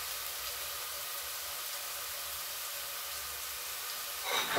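Vegetable sofrito of onion, garlic, carrot, mushrooms and tomato frying in oil in a pan, a steady sizzle, with a brief louder sound near the end.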